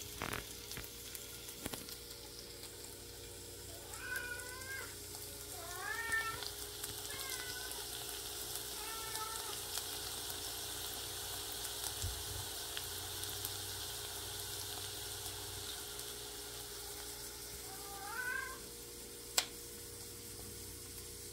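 A house cat meowing five times in short, mostly rising calls, about four, six, seven and nine seconds in and again near the end, over the steady hiss of the soup pot heating on the stove. A single sharp click comes near the end.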